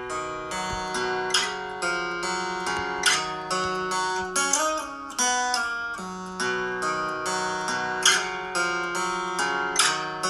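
Background music: plucked string instruments, guitar-like, playing a bright melody of quickly repeated notes.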